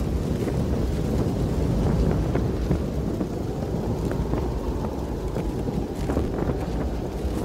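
Wind buffeting the microphone in a steady low rumble, with faint crunches of boots on snow.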